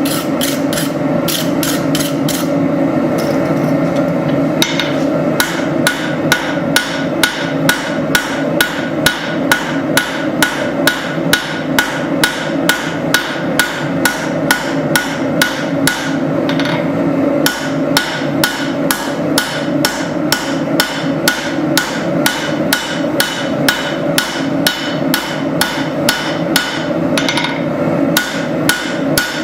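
Hand hammer striking hot spring steel on an anvil, drawing out a tanto knife blade: a steady run of ringing blows, about two a second, with a couple of short pauses, over a continuous steady roar.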